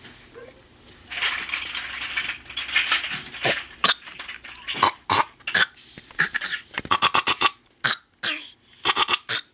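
A baby making a run of short coughs, huffs and raspy grunts as if talking. It opens with a longer breathy rasp about a second in, followed by many quick choppy bursts.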